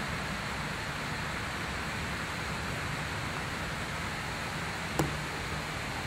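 Steady outdoor background hiss with a single sharp click about five seconds in.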